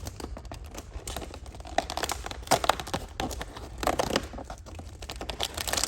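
Toy box packaging being opened and handled: irregular crinkling and tearing of cardboard and paper, with a few sharper snaps in the middle.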